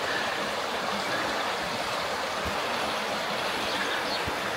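Waterfall and stream water rushing, a steady even rush.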